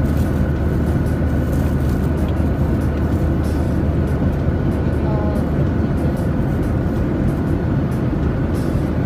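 Steady drone of a Boeing 737-800 cabin in flight, engine and airflow noise with a constant hum. Faint crinkling of plastic wrap comes through on top as a pastry is unwrapped.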